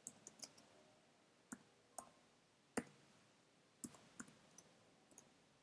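Faint keystrokes on a computer keyboard: a dozen or so short clicks at an irregular pace, made while typing code.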